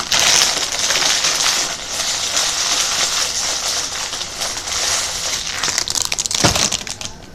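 Foil snack bag of chips being handled and crinkled, a dense continuous crackle that thins to scattered clicks near the end, with a single thump.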